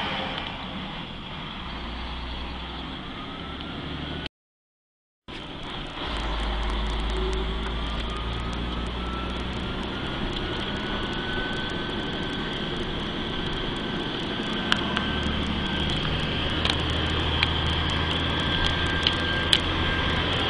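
Mercedes-Benz 3340 truck's diesel engine running with a thin high whine that slowly rises in pitch and then holds steady: the turbocharger noise of a failing turbo. A few sharp ticks come near the end.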